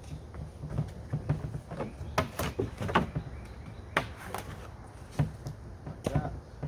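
Irregular knocks and clatter of the folding kayak's parts being picked up and handled, about half a dozen sharp knocks spread over several seconds, over a low steady rumble.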